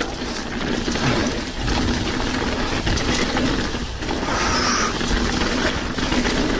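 Mountain bike ridden down a trail, heard from a chest-mounted action camera: a steady rush of tyre noise, wind on the microphone and rattling from the bike, over a steady low hum.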